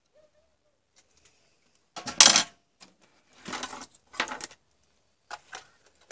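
Metal hand tools clattering as they are put down on a hard surface. The loudest clatter comes about two seconds in, then a few quieter clinks and knocks follow.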